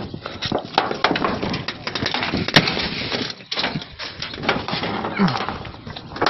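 Close crackling, scraping and clicking as a hand and the phone rub and knock against a corrugated metal sheet, with one sharp click about two and a half seconds in.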